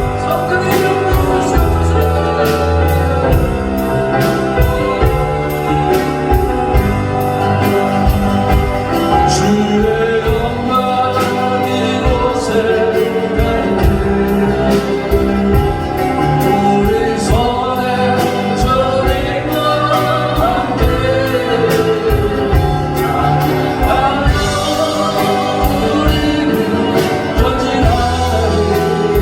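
Praise band and singers performing a gospel worship song: several voices singing a melody over a steady drum beat and band accompaniment.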